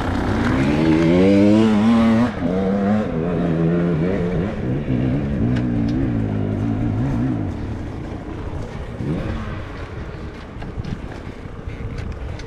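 GasGas enduro motorcycle engine revving hard under load on a dirt hill climb. Its pitch rises for about two seconds, drops sharply, then wavers before dying down after about seven seconds to a faint low running, with a few light ticks near the end.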